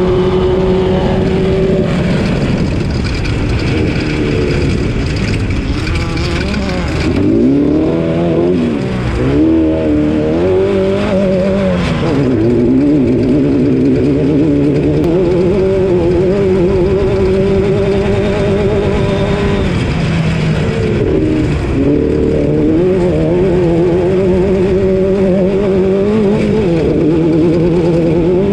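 Off-road race car's engine running hard throughout, mostly holding high revs, with stretches where the revs drop and climb again several times, around a quarter of the way in and again about three quarters through.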